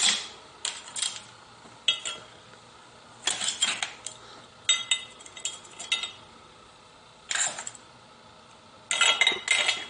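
Metal kitchen tongs clinking against steamed littleneck clam shells and a ceramic plate as the clams are set down one by one, in scattered clusters of short clinks with pauses between.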